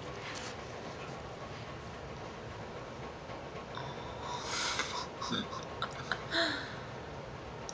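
Faint steady room hiss, broken about four and a half seconds in by a loud breathy puff of air, most likely a person's breath close to the microphone, then a few light clicks and a second short puff near the end.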